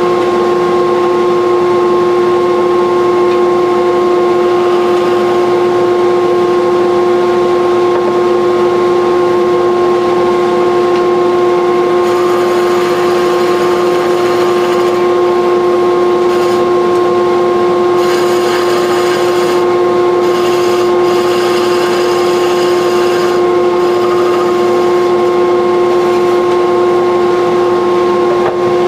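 Wood lathe running with a steady, unchanging whine as a chisel cuts the spinning wooden handle, the cutting turning brighter and hissier about twelve seconds in and again from about eighteen to twenty-three seconds.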